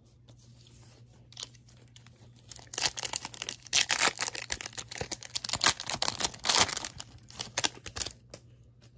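Foil wrapper of a Topps Chrome baseball card pack being torn open by hand, crinkling and crackling. It starts about two and a half seconds in and stops shortly before the end.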